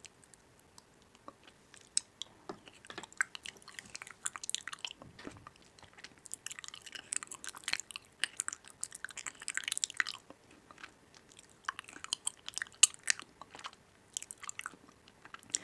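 Close-up chewing and biting of crunchy food: crisp crackling in several bursts with short pauses between.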